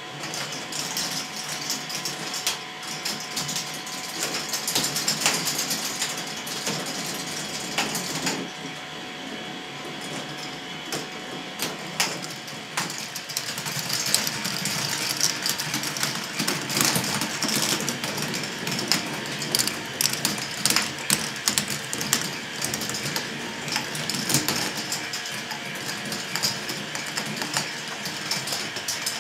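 K'nex ball machine running: plastic balls clicking and clattering along plastic tracks and elements, over the steady whirr of the motor-driven lifts.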